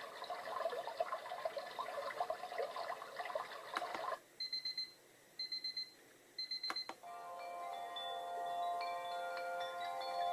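Wake-up light alarm clock playing its built-in alarm sounds through its small speaker. A bird-call track runs for the first four seconds, then come three short bursts of rapid high electronic beeping about a second apart, then a chiming melody of sustained notes from about seven seconds in.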